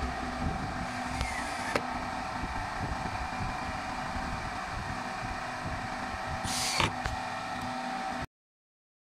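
Steady mechanical hum, with a sharp click about two seconds in and a brief burst of hiss near seven seconds; the sound cuts off abruptly just after eight seconds.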